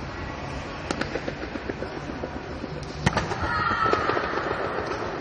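Sharp slaps and thuds of a pencak silat doubles routine: hand strikes, and a loud impact about three seconds in as one fighter is thrown to the mat, followed by a louder noisy stretch.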